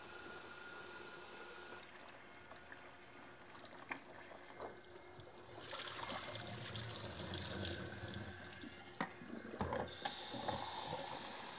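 Kitchen tap water running into a film developing tank for the final rinse, shut off about two seconds in. Rinse water is then poured out of the tank into a stainless steel sink, with clicks and knocks of the plastic tank. The tap is turned back on near the end, its stream running into the tank again.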